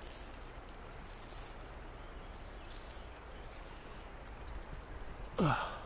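Quiet riverside ambience: a faint steady wash of moving water with a few short high-pitched chirps. About five seconds in comes a brief vocal sound from a person that falls sharply in pitch.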